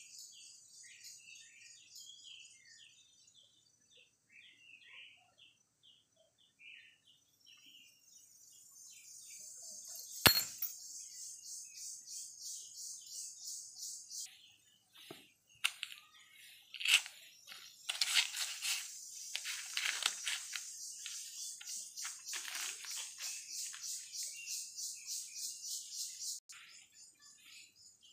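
Small birds chirping repeatedly over a steady, rapidly pulsing insect buzz. A sharp click comes about ten seconds in, then several seconds of louder scraping, crackling noise.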